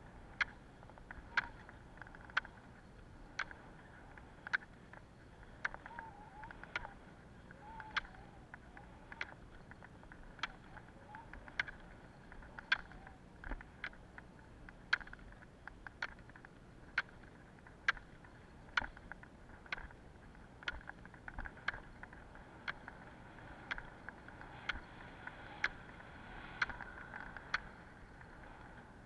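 Roller-ski pole tips striking asphalt in a steady rhythm, a sharp click about once a second and sometimes doubled, over a faint steady hiss.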